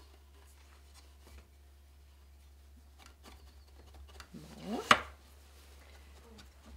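Hands weaving a fabric-strip weft through the taut cotton warp of a frame loom: faint rubbing and light clicks, then about four and a half seconds in a short rising squeak that ends in one sharp snap.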